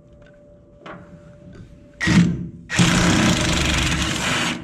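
A cordless power wrench run in two bursts, a short one about two seconds in and a longer one of nearly two seconds, backing out a gooseneck hitch mounting bolt.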